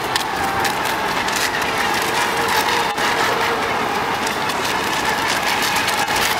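Model racing boats running fast on the water, with a steady motor whine over the rush of spray.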